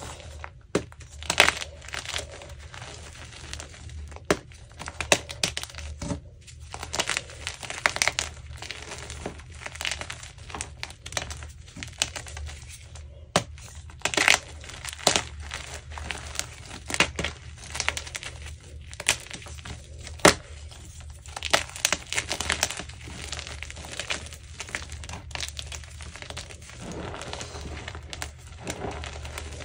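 Blocks of gym chalk, yellow-dyed re-formed blocks and plain white ones, crushed and broken between the fingers into loose powder: dense, irregular crunching and crackling with several sharper snaps as pieces break. A steady low hum runs underneath.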